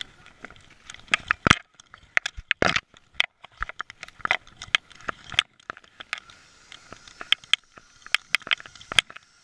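A dog's claws clicking on a hardwood floor, with the camera strapped to its neck knocking and rattling as it moves: quick, irregular clicks in flurries, and a short scrape about two and a half seconds in.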